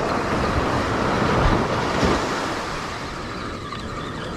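Waves breaking and washing up a sand beach, a rush of surf that builds to a peak about a second and a half in, then eases off.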